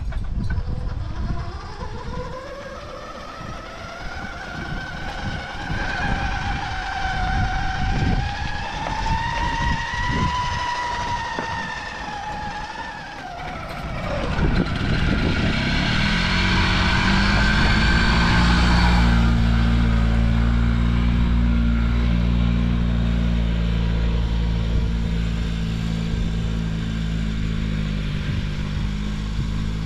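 Two-stroke Harley-Davidson engine of an early-1980s Par Car golf cart running under way. Its pitch rises as the cart speeds up, holds, then drops away about 13 seconds in. After that a steadier, lower engine drone runs on.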